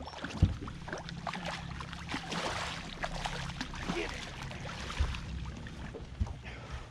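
Water splashing and irregular knocks at the side of a boat as a striped bass is fought and netted, over a steady low hum.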